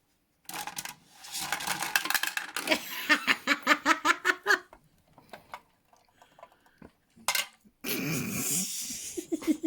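Laughter in long runs of quick pulses, with a single sharp knock about seven seconds in.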